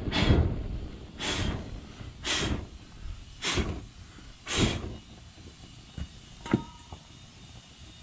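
Starting-fluid fire burning inside a just-seated skid steer tire rim, puffing in whooshes about once a second that die away after about five seconds; two light clicks follow.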